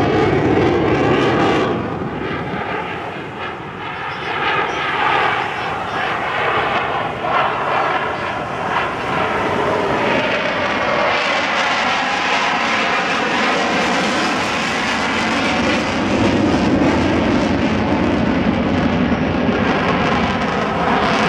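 F-16 fighter jet's single jet engine heard from the ground as it flies aerobatics: a loud, continuous rushing jet noise that dips a little a couple of seconds in, then holds, its tone wavering and sweeping up and down as the jet turns and climbs.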